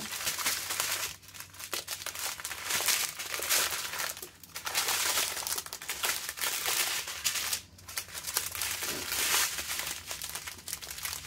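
Strips of small plastic bags of diamond painting drills crinkling loudly as they are handled, unfolded and laid out, with a few brief pauses.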